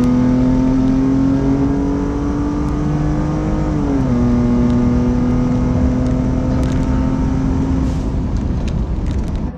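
2016 Ford F-150 pickup engine at full throttle, heard from inside the cab during a high-speed acceleration run. Its note climbs, drops at an upshift about four seconds in, climbs again, then eases off near the end.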